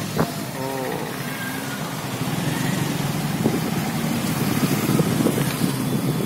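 Vehicle engine and road noise while riding along a rough road, with wind buffeting the microphone. A short pitched sound with several tones comes under a second in.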